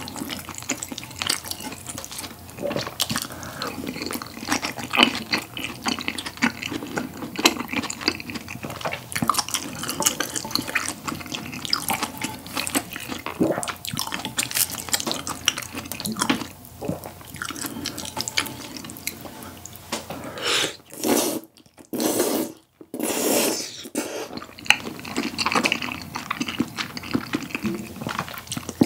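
Close-miked wet chewing of saucy tteokbokki and grilled beef brisket, full of small sticky smacks and clicks. A run of several loud slurps comes about two-thirds of the way through.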